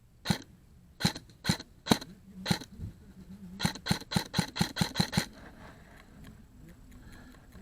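Airsoft gun firing: five single shots about half a second apart, then a quick string of about eight shots in a second and a half.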